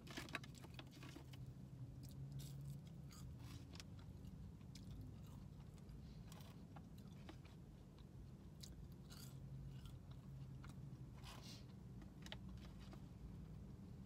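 Quiet chewing of crinkle-cut fries dipped in ketchup, with scattered faint mouth clicks and smacks over a low steady hum.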